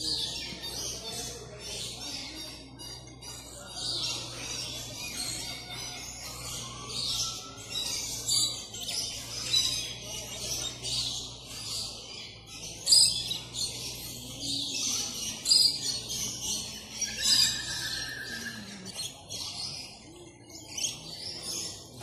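A dense chorus of many aviary birds chirping and calling over one another, with a few louder calls standing out, over a steady low hum.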